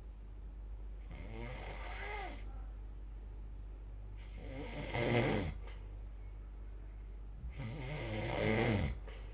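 A person snoring: three snores about three seconds apart, each lasting a little over a second, the second and third louder than the first.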